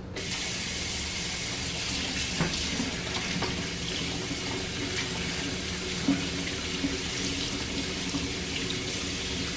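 Kitchen faucet turned on and running steadily into a stainless steel sink while a spatula and hands are rinsed under it, with a few small knocks.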